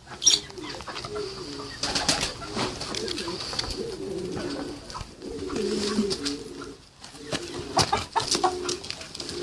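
Birds calling in low, repeated cooing notes in short rolling phrases, with higher-pitched chirping and scattered sharp clicks. A loud click comes just after the start.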